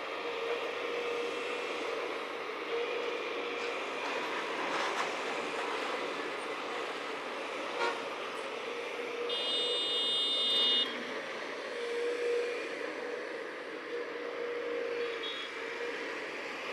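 Heavy road-works machinery running steadily. A short high-pitched horn toot lasts about a second and a half, about nine and a half seconds in.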